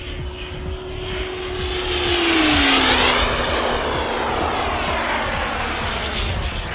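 Model jet turbine (BF Turbines B100F) of a radio-controlled jet flying past: a steady whine that drops in pitch a little over two seconds in as the jet goes by, under a rush of jet noise that swells to its loudest about three seconds in.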